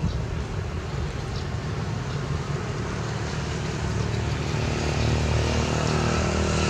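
A motor engine running steadily with a low hum, growing louder in the last couple of seconds as it comes closer.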